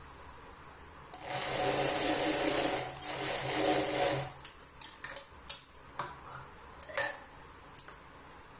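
Industrial sewing machine running in two short stitching bursts, about two seconds and then a second and a half, with a steady whirring hum as it sews a binding strip onto fabric. Then come half a dozen sharp clicks and light handling noises as the work is pulled off the machine.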